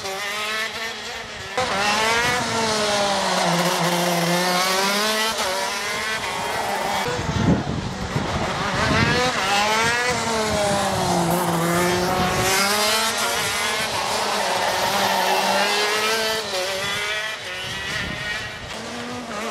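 Racing karts' two-stroke Rotax engines revving, the pitch dropping and climbing again several times as they brake and accelerate through corners. A short, louder rush of noise comes near the middle.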